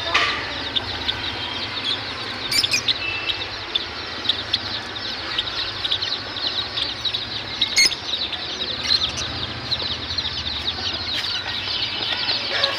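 Caged budgerigars, lovebirds and Java finches chattering together: a continuous mass of fast, overlapping high chirps and warbles. A few sharp clicks stand out, one about two and a half seconds in and another near eight seconds.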